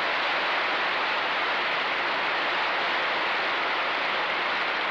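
Large audience applauding in a steady wash of clapping.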